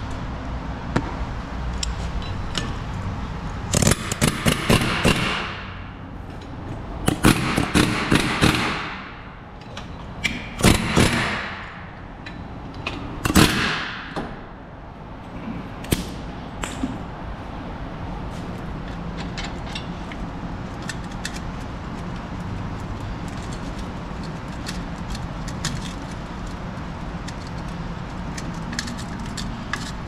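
Impact wrench hammering in four bursts of about a second each during a wheel-hub job. After them come scattered light clinks of tools over a steady low hum.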